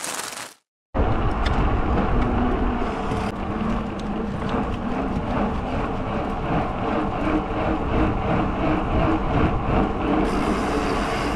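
Bicycle ridden along a dirt trail: wind buffeting the microphone over the rolling of the tyres, a steady low rumbling noise that starts about a second in after a brief break.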